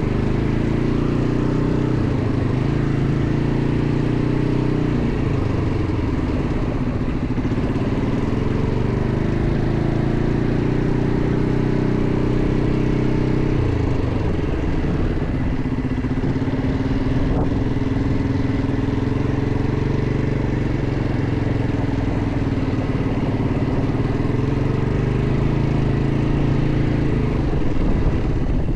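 ATV engine running as the quad is ridden over a dirt track. Its pitch drops and climbs again several times as the throttle is eased and reopened.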